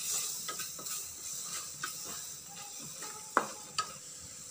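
A spoon stirring and scraping thick onion-tomato masala around a stainless steel kadai, over a steady light sizzle on a medium flame. A sharper knock comes about three and a half seconds in.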